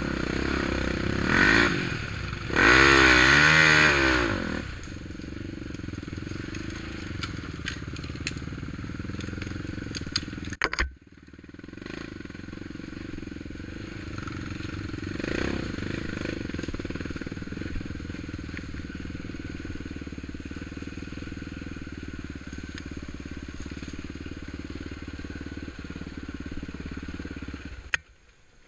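ATV engine running, with a loud surge about three seconds in, then settling to a steady drone.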